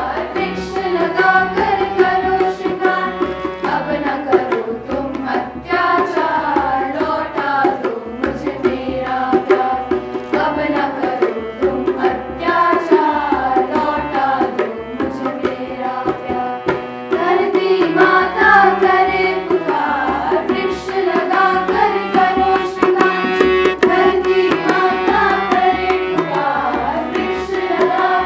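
A girls' choir singing a song, accompanied by a harmonium holding a steady drone and a tabla keeping time.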